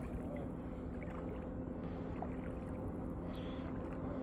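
Steady low outdoor rumble of wind and water at the shoreline, with a faint steady hum and no clear splash.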